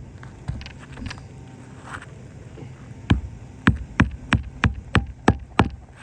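Hammer nailing down a roof shingle: a few light handling clicks, then from about halfway a run of about eight sharp hammer strikes, roughly three a second.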